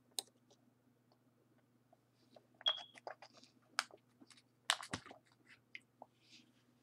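Computer mouse clicking: a scattering of small sharp clicks, thickest a few seconds in, over a faint steady electrical hum.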